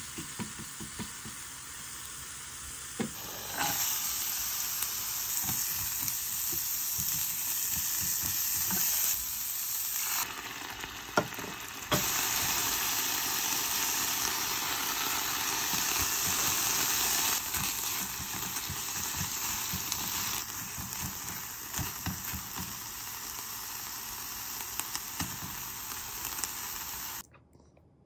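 Minced garlic and then cut garlic scapes sizzling in olive oil in a frying pan, stirred with a spatula that knocks against the pan now and then. The sizzle gets louder about three seconds in, shifts in level a few times, and cuts off suddenly near the end.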